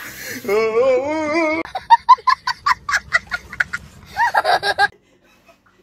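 A young child laughing hard in a rapid string of short, high-pitched bursts, after a drawn-out wavering vocal. It cuts off suddenly about five seconds in.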